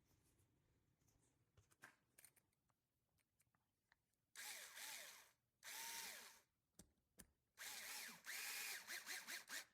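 Small electric power screwdriver driving a screw in about five short runs, its motor whirring up and down with each run, as a body post screw is driven into the front body mount.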